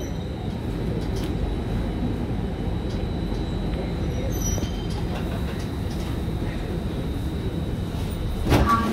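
Alstom C830 metro train's motor car heard from inside as it brakes into a station and comes to a stop: steady low running and traction-motor noise with a thin high steady tone that cuts off near the end. A brief chime follows as the train halts.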